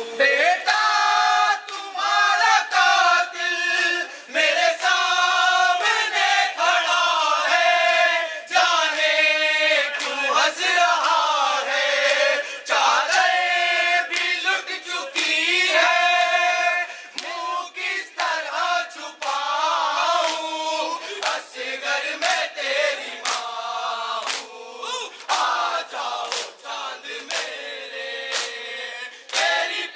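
A crowd of mourners chanting a noha (Muharram lament) together in a sliding melody, with sharp slaps of matam chest-beating keeping time, thicker in the second half.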